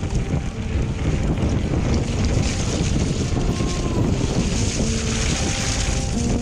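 Heavy wind rumble and buffeting on the microphone of a bike-mounted camera on the move, with faint background music notes coming in about halfway.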